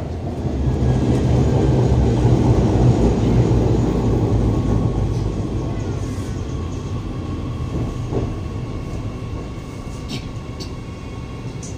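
Interior rumble of a metro train running, swelling early and then fading steadily as the train slows toward a station. A faint steady whine and a falling whine come in partway through.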